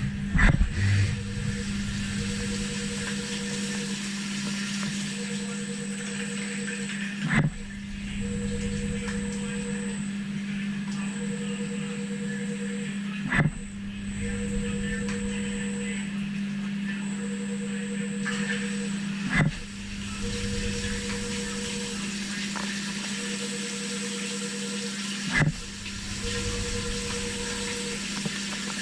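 Syil CNC milling machine running a program on copper bus bar: a steady hum with a tone pulsing on and off about every second and a half, and a sharp knock about every six seconds.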